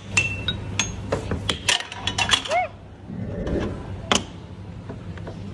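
Air hockey puck clacking against plastic mallets and the table rails: a quick run of sharp hits in the first two and a half seconds, then a single hard hit about four seconds in.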